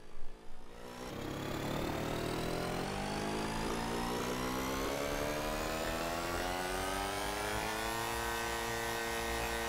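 Motor scooter engine sound effect accelerating. About a second in its pitch begins rising steadily as the speed climbs, then holds level for the last couple of seconds.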